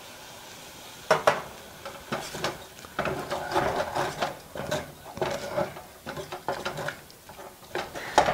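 A wooden spatula stirring a thickening milk-and-broccoli mixture in a stainless steel saucepan: repeated, irregular scrapes and knocks against the pan, starting about a second in.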